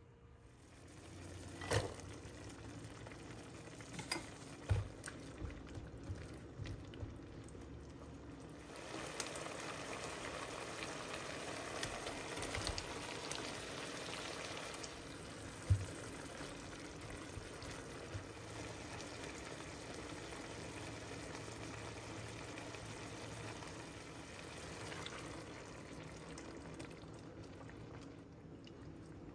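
Liquid bubbling and sizzling in a cooking pan, louder from about nine seconds in, with a few sharp knocks of a utensil against the pan.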